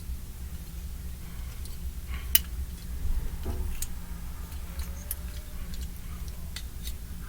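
Scattered light clicks of plastic Gunpla model-kit parts being handled and snapped together, the sharpest about two and a half seconds in, over a steady low hum.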